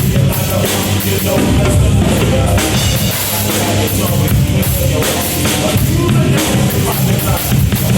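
Drum kit played in a steady rock groove, along with a rock backing track, heard through a drum monitor speaker.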